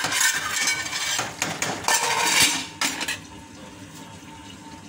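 Metal spatula stirring and scraping potato and aubergine curry in an aluminium pot, with sharp clinks of metal on metal. About three seconds in, the pot is covered with its lid and the sound drops to a much quieter steady background.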